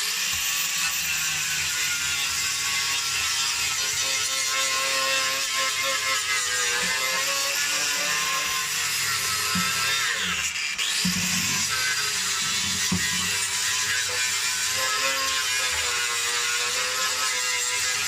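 Angle grinder with a flap wheel running against the car's thin sheet-metal body, a steady high whine. About ten seconds in, the pitch dips sharply and recovers as the grinder bogs under load.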